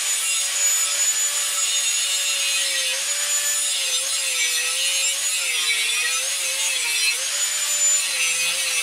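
Angle grinder cutting through steel: a steady high motor whine over a hissing grind, its pitch dipping several times as the disc is pressed into the cut.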